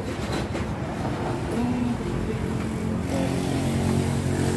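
Motorcycle engine idling steadily, growing a little louder about three seconds in.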